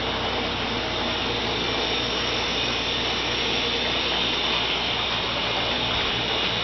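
Steady rushing noise with a low hum as a plasma table's water bed fills from a reservoir tank, the water forced up through a hose by about 5 psi of air pressure.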